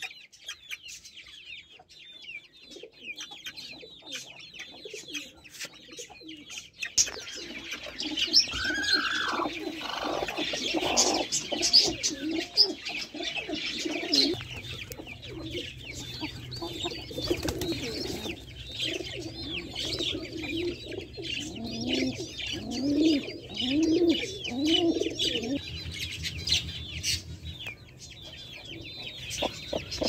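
Young chicks peeping continuously in high-pitched chirps. About seven seconds in, deeper calls from adult birds join in and run for most of the rest, with three rising calls in quick succession near the end.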